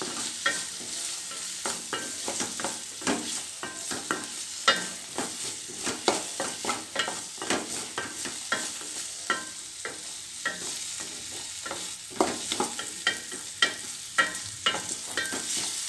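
Wooden spatula stirring and scraping chopped onion and tomato around a stainless steel pan, in irregular taps and scrapes, over a light sizzle of the vegetables frying in oil.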